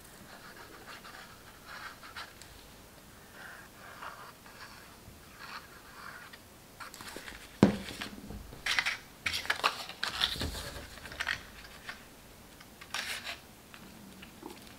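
Cardstock being handled on a cutting mat: faint rustling at first, a single sharp knock a little past halfway as a plastic glue bottle is set down on the wooden table, then several short bursts of paper rustling and scraping as the card is slid into place and pressed.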